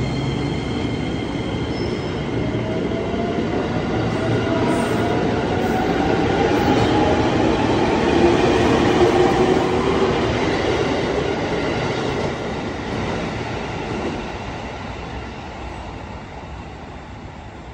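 KAI Commuter electric commuter train pulling out of the platform. Its wheels rumble on the rails and a whine rises in pitch as it picks up speed. It grows loudest as the cars pass, then fades as the train leaves.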